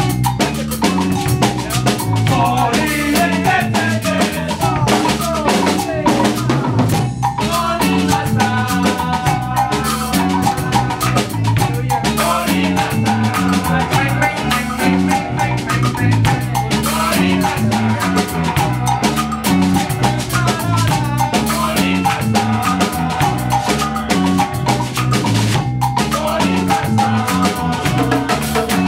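A Latin band playing salsa-style music: a stepping bass line and keyboard chords over congas and hand percussion, with voices singing into the microphone near the end.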